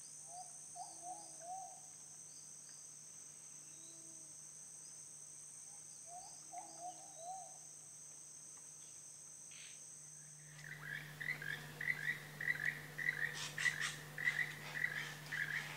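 Tropical rainforest night chorus: a steady high-pitched insect drone with a few short low calls. About ten seconds in it changes abruptly to frogs calling in quick repeated notes, with some sharp clicking calls mixed in.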